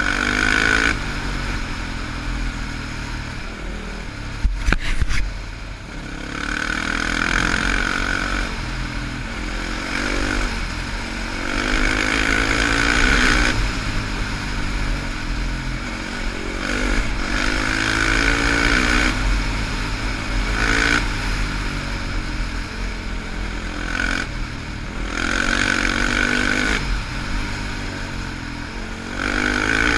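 Sport quad (ATV) engine running hard, revving up and easing off again and again with the throttle, over a low rumble of wind and tyres on gravel. A couple of sharp knocks come about five seconds in.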